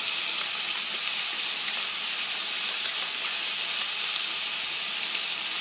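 Bacon sizzling in a frying pan, a steady even hiss.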